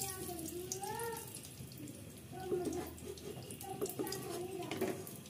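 A spoon scooping ghee out of a tin, with a few light clicks, over a steady hiss and a faint voice.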